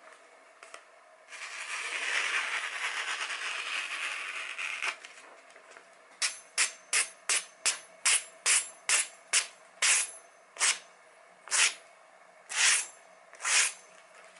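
Masamoto santoku blade slicing through a hand-held sheet of paper flyer: after a few seconds of continuous paper rustle, a quick run of about seventeen short slicing swishes, two or three a second at first and spacing out near the end.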